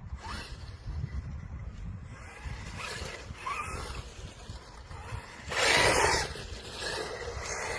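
Small electric RC truck driving over rough ground, with a loud rush of noise about five and a half seconds in as it passes close. Wind rumbles on the microphone throughout.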